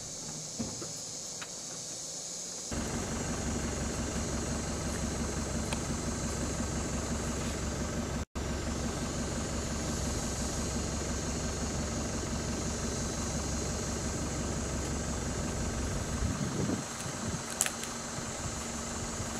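An engine idling steadily, kicking in suddenly about three seconds in and cutting out for an instant about eight seconds in.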